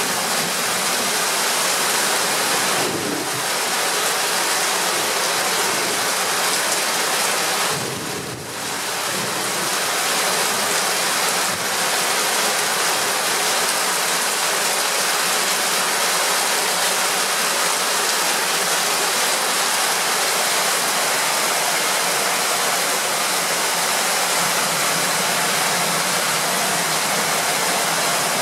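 Heavy thunderstorm downpour: a steady, dense hiss of rain, with water pouring off the roof edge.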